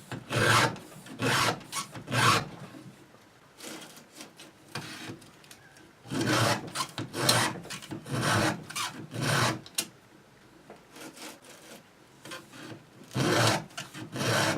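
Round file rasping across the cutters of a 24-inch chainsaw chain, in groups of several forward strokes about a second apart, with pauses of a few seconds between groups as it moves from tooth to tooth.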